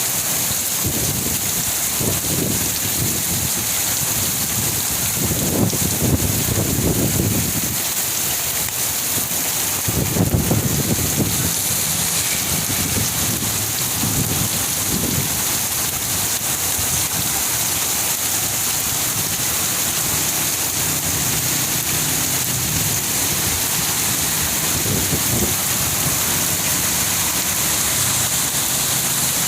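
Heavy rain falling steadily, an even hiss, with low rumbles that swell up twice, about six and about ten seconds in.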